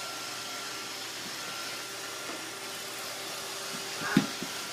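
Roomba robot vacuum running with a steady whirring hum and a faint high steady whine, with a short thump about four seconds in.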